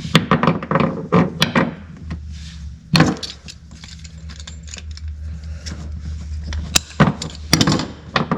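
Tools and small metal parts being handled and set down: a quick run of clicks and clinks in the first two seconds, one sharp knock about three seconds in, and a few more clinks near the end.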